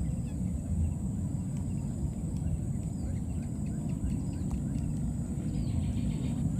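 Outdoor ambience: a steady low rumble with a thin, steady high whine above it and faint, short high chirps scattered through.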